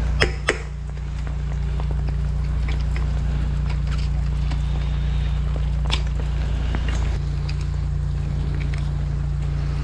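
A high-pressure drain jetter's engine running with a steady low hum, while metal hose fittings click and knock as the jetting nozzle is swapped for a root cutter: two sharp clicks at the start, a few more about two-thirds of the way in.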